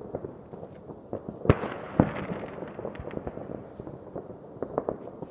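Fireworks and firecrackers going off: a string of fainter bangs throughout, with two loud bangs about a second and a half and two seconds in, the first trailing into crackling.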